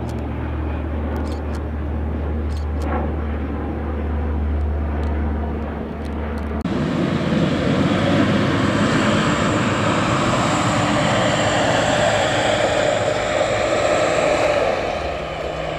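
Firefighting air tanker's engines: a steady low drone, then about six and a half seconds in a sudden louder rushing roar with a thin high whine as the aircraft passes close.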